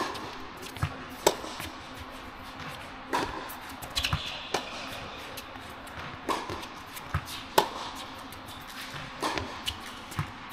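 Tennis ball struck back and forth in a baseline rally on an indoor hard court: sharp racket hits and ball bounces every second or two, echoing in a large tennis hall.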